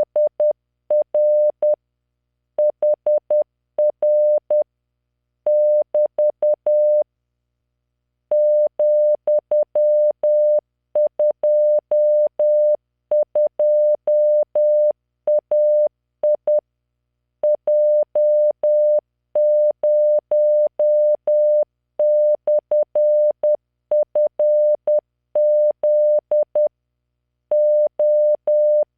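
Morse code as a computer-generated 600 Hz tone at 10 words per minute, keyed into dots and dashes that spell random five-character groups of letters, figures and punctuation, with short silences between groups. Each tone starts and stops with a faint click.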